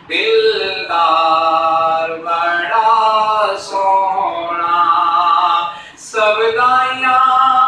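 A man reciting a naat, a devotional poem in praise of the Prophet, in long held melodic phrases with short pauses for breath about every two seconds.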